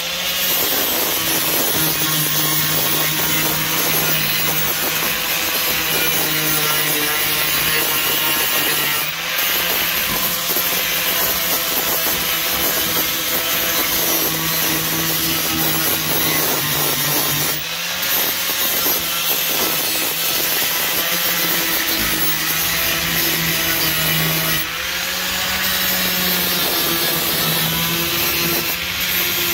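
Angle grinder grinding down weld seams on a steel car floor pan: a steady motor whine over harsh scraping of the disc on metal. It dips briefly about three times as the load on the disc eases.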